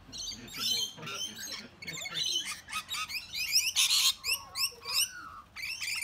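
Rainbow lorikeets chattering and screeching: a busy run of short, quick high chirps, with one loud harsh screech about four seconds in.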